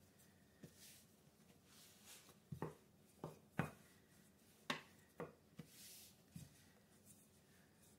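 Rolling pin working pie-crust dough on a floured counter: faint rubbing, broken by several light, irregular knocks.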